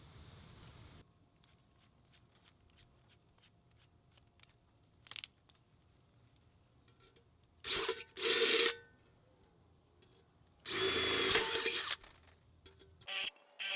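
Power drill boring holes in the side of a stainless steel pot, run in short trigger bursts: a brief one about five seconds in, two near eight seconds, a longer one around eleven seconds, then quick pulses at the end.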